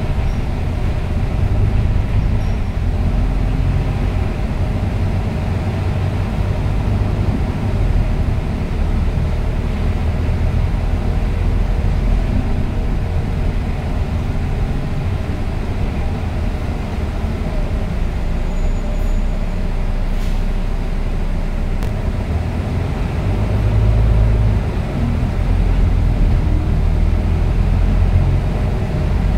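Volvo B9TL double-decker bus heard from inside the passenger cabin while on the move: the steady low drone of its 9.4-litre six-cylinder diesel and ZF EcoLife six-speed automatic gearbox, with road and tyre noise. The drone swells about 24 seconds in and stays stronger to near the end, as the bus pulls harder.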